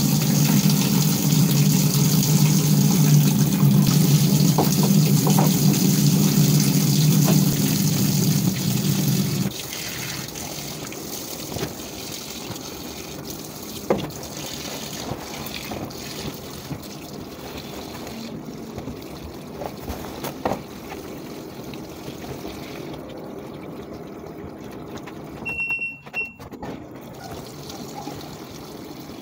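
Water running into the tub of a top-loading washing machine with a low motor hum, both cutting off abruptly about nine seconds in. After that a fainter hiss runs on under soft rustles and knocks of clothes being loaded, with a short electronic beep near the end.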